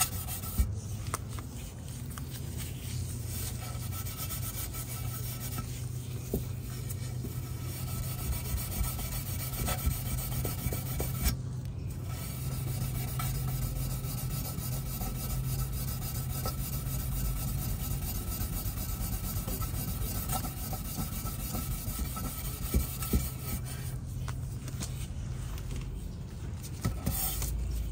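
Fine 0000 steel wool rubbed back and forth on a chrome exhaust tip trim, a steady scratchy scrubbing that polishes carbon soot off the chrome. The rubbing eases off in the last few seconds, and a steady low hum runs beneath it.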